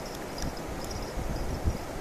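Shallow river water rushing over stones, with gusts of wind buffeting the microphone.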